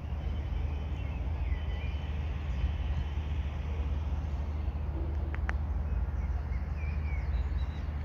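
Low steady outdoor rumble with faint bird chirps now and then, and one sharp click about five and a half seconds in.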